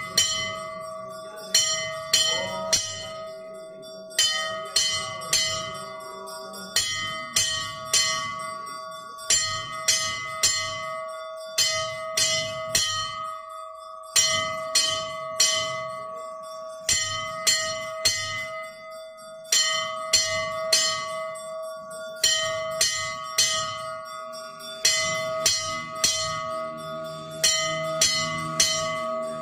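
Temple bells ringing during a Hindu puja, struck in quick clusters of a few strikes every couple of seconds, with a steady ringing tone that carries on underneath.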